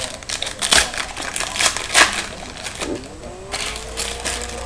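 Foil trading-card pack wrappers being torn open and crinkled by hand, an irregular run of sharp crackles, with the cards inside being handled.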